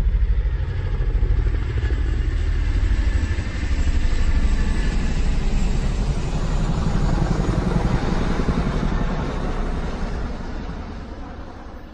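Motor vehicle engine running steadily, fading away over the last few seconds.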